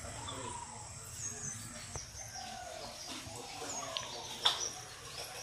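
Birds calling and chirping in the trees, over a steady high insect whine.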